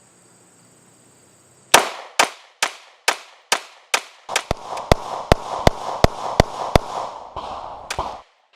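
Glock 19 Gen 5 9mm pistol fired in rapid succession: a string of about fifteen sharp shots, a little over two a second, starting nearly two seconds in and stopping near the end, with a steady hiss under the later shots.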